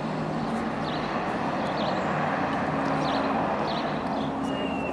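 Steady outdoor background noise with a low hum under it, and small birds chirping briefly about once a second.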